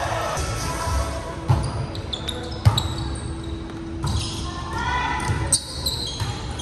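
Volleyball game in a gym: the ball is struck sharply twice, about a second apart, with short high squeaks and players shouting, echoing in the hall.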